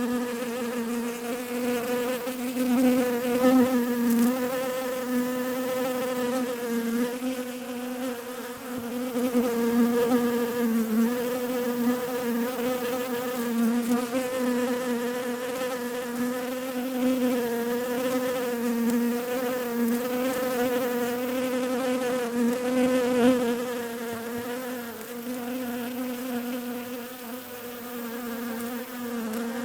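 Bees buzzing: a steady, droning hum whose pitch wavers slightly up and down.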